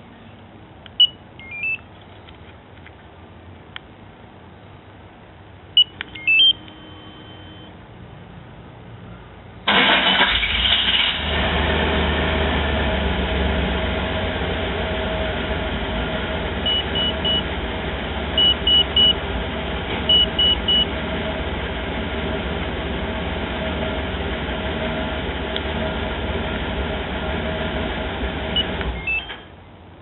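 Holden VN Commodore wagon remote-started through a Spy alarm system. A few short electronic beeps come first. About ten seconds in, the engine cranks and catches, then idles steadily for about twenty seconds, with three sets of three short beeps partway through. The engine shuts off shortly before the end.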